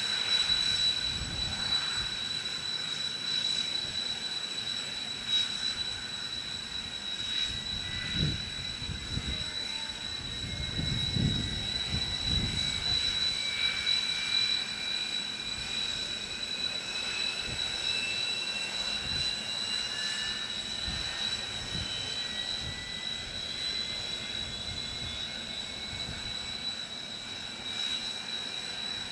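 Kawasaki T-4 jet's Ishikawajima-Harima F3 turbofans starting: a turbine whine rising slowly in pitch, with a second rising whine joining later, over a steady high-pitched whine. Wind rumbles on the microphone in gusts.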